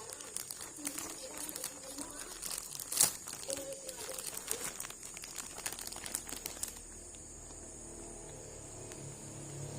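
Toy packaging being handled and opened: plastic and cardboard crinkling and rustling in irregular crackles, with one sharp snap about three seconds in. The handling dies down for the last few seconds.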